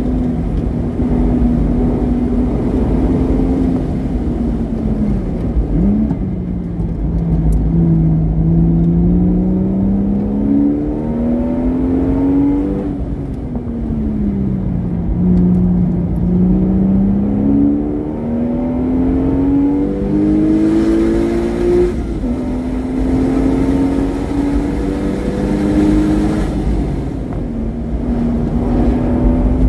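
Porsche Boxster S engine through a modified exhaust, loud, its pitch climbing under acceleration and dropping off again several times as the car is driven hard around a race track.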